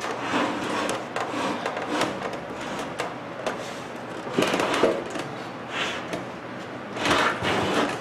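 A microwave oven's bare metal cabinet being turned and shifted on a workbench by hand, with irregular knocks and short scraping rustles, two longer scrapes in the second half.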